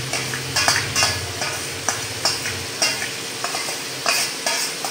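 Boiled tapioca pearls being scraped and tapped out of a steel pot into a plastic jug of milk: a quick, uneven run of short metallic scrapes and knocks, two or three a second, over a wet rustling.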